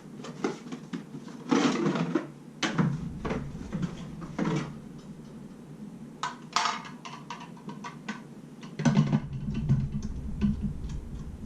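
Irregular clicks and knocks as a KitchenAid meat grinder attachment is handled and fitted onto the stand mixer's front attachment hub.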